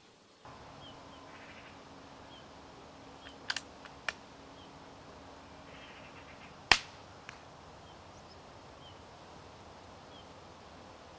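A single suppressed shot from a .22 rimfire rifle fitted with an A-TEC silencer, firing a CB long round: one short, sharp crack about two-thirds of the way through. A few light clicks come a few seconds before it.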